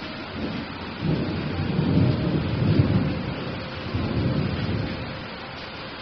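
Rolling thunder over steady rain hiss: a low rumble builds about a second in, swells twice and dies away near the end.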